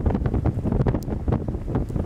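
Wind buffeting the microphone on a ship's open deck: a loud, uneven low rumble with constant small gusty flutters.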